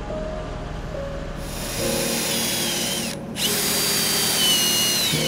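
Cordless drill driving self-drilling screws into a steel facade panel: the motor whines at high speed, stops briefly about three seconds in, then runs again until just before the end.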